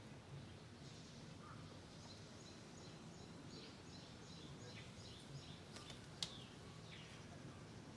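Faint outdoor background with small birds chirping in quick runs, and a single sharp click about six seconds in.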